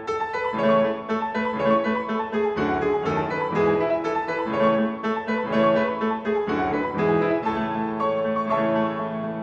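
Background music played on a piano-like keyboard, notes struck in a steady rhythm.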